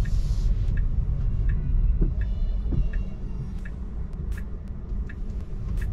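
Steady low road and tyre rumble inside a Tesla Model 3's cabin, with a faint tick about every three-quarters of a second from the turn signal as the car turns.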